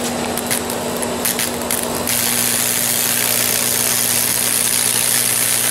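High-voltage arc from a microwave oven transformer: crackling snaps over a steady hum, then about two seconds in an arc strikes and holds as a continuous loud buzzing hiss. The arc is burning through damp pine straw, setting it smoking.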